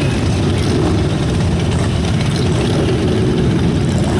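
Engines of a procession of motorcycles, cars and trucks running steadily as they roll in.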